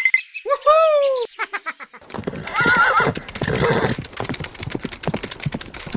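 Horse sound effects: a falling, quavering whinny about half a second in, then a fast run of hoofbeats from about two seconds on, with another short whinny over them.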